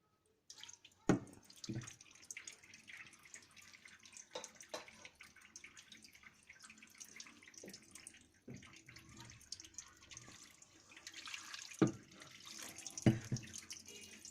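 Hot water being poured over a refrigerator's rear drain pipes, splashing and dripping, with a few sharp knocks. It is poured to flush a freezer drain pipe that is clogged with dirt.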